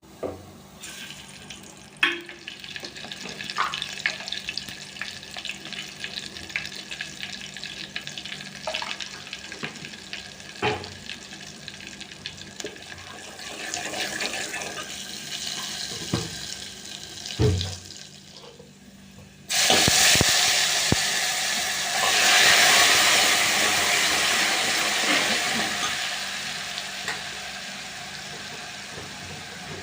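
Cooking in a pan: a low frying crackle with occasional utensil knocks. About two-thirds of the way through, a loud sizzle starts suddenly, as from something added to hot oil, and slowly dies down.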